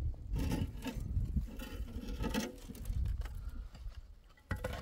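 Hollow concrete blocks being handled: scraped and rubbed against one another as they are lifted and set into place, with a sharp knock near the end.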